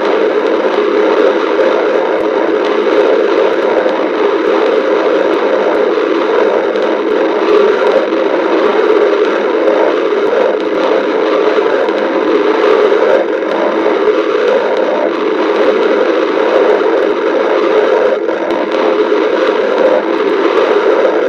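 Stomach growling: a loud, steady, unbroken rumbling noise.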